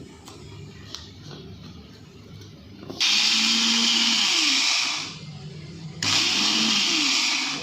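Electric mixer grinder grinding spices into masala, run in two loud bursts of about two seconds each, the first starting about three seconds in and the second a second after the first stops. A few light clicks come before it starts.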